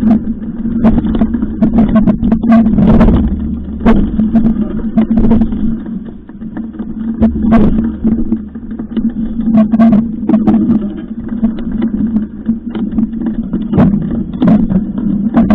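Rumble and handling noise picked up by an action camera as mountain bikes are pushed over a rough dirt trail: many irregular knocks and rattles over a steady low hum.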